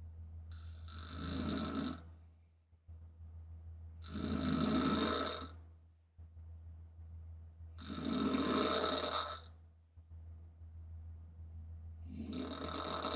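A sleeping woman snoring through an open mouth: four loud snoring breaths, about one every four seconds, over a low steady hum.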